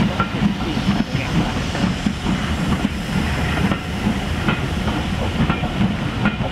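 Steam-hauled passenger train pulling out: carriage wheels rumble and click over the rail joints as the coaches roll past, with steam hissing from the locomotive.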